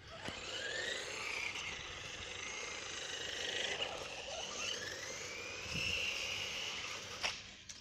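RC monster truck's electric motor and gears whining as it drives over paving, the pitch rising and falling as it speeds up and slows, over a hiss of tyres on stone. A sharp click near the end.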